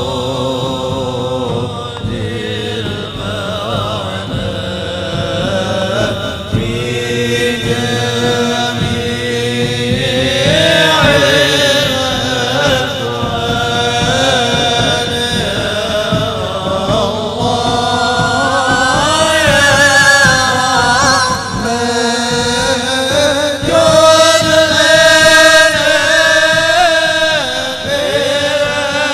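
Voices chanting a devotional syair in slow, drawn-out melodic lines that glide between held notes. The chant grows louder around the middle and swells again near the end.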